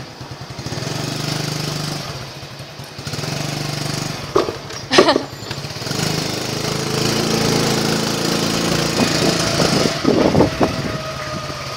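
Small motorbike engine running while riding, with steady engine hum that swells from about six seconds in. Sharp knocks come about four and a half and five seconds in, and a few more near the end.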